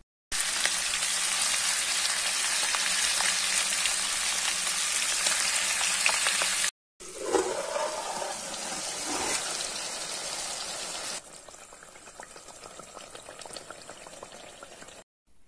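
Pork belly pieces frying in oil in a pot: a loud, steady sizzle that stops abruptly for a moment about seven seconds in. It then picks up again and, after about eleven seconds, drops to a quieter sizzle as the pork cooks down with tomatoes.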